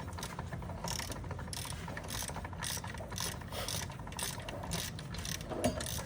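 Irregular mechanical clicking and rattling from hands-on work on car parts, over a steady low hum.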